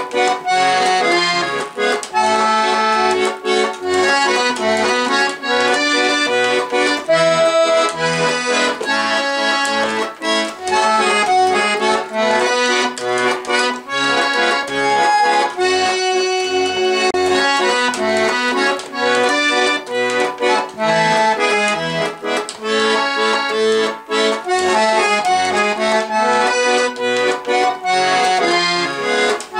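Garmon (Russian button accordion) playing a lively melody over chords, with short bass notes pulsing underneath.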